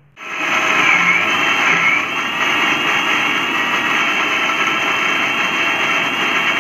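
Electric mixer grinder with a steel jar switched on and running steadily at full speed, grinding soaked lentils, rice and chillies with water into a coarse-to-smooth batter. It starts abruptly at the very beginning, with a slight shift in its pitch over the first couple of seconds.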